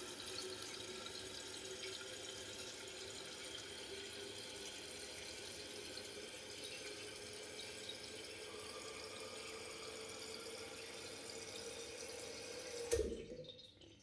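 Toilet hissing steadily as water runs through its tank, with a faint whistling tone in the hiss. About 13 seconds in a sudden knock sounds and the hiss stops.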